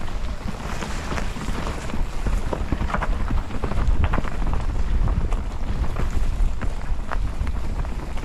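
Mountain bike riding a dirt trail, heard from an action camera: wind buffets the microphone in a steady low rumble, and the bike gives frequent short rattles and knocks over rough ground.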